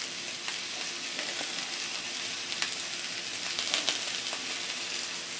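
Steak fajitas (beef strips, onions and peppers) sizzling in a hot cast iron skillet: a steady frying hiss with a few faint crackles.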